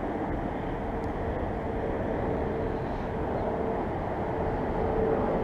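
Steady rumble of road traffic with a faint continuous hum, holding even throughout.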